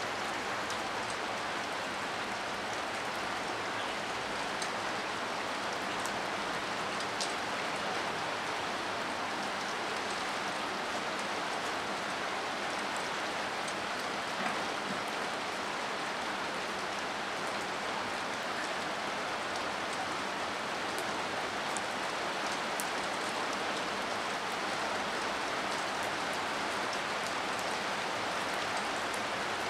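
Steady rain falling on wet pavement: an even hiss with scattered sharper ticks of individual drops.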